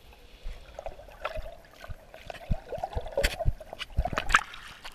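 Sea water heard from below the surface: muffled gurgling and bubbling. In the second half come a string of dull knocks and thumps.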